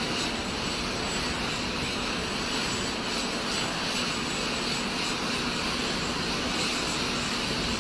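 Jet aircraft engines running on an airfield, heard as a steady, even rushing noise with a faint high whine.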